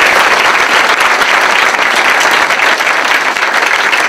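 An audience applauding, a dense, steady patter of many hands clapping.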